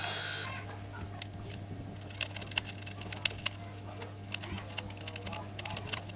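Scattered small irregular clicks and crackles of soldering work on a TV inverter circuit board, over a steady low electrical hum.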